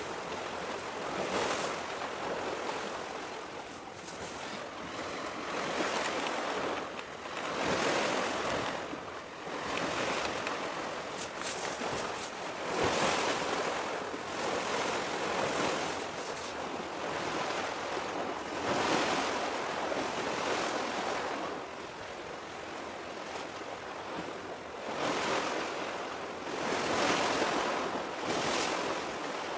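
Sea waves washing against the shore, the noise swelling and easing every few seconds, with some wind on the microphone.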